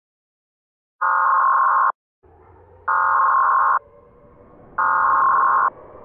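Emergency Alert System header tones: three identical buzzing electronic data bursts, each just under a second long and about a second apart, with a faint hiss and hum in the gaps after the first.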